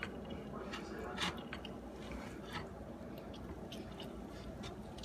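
A fresh lemon being twisted and pressed on an old-fashioned ironstone ceramic juicer: faint wet squishing with scattered small scrapes and clicks.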